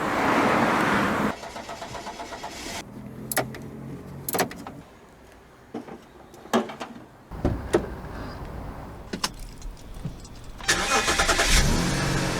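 A run of sharp clicks and knocks, then a car engine starting about seven seconds in and running with a low, steady sound.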